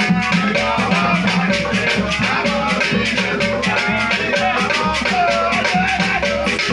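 Masquerade dance music: shakers keep a fast, steady beat of about five or six strokes a second, under a pitched melody line.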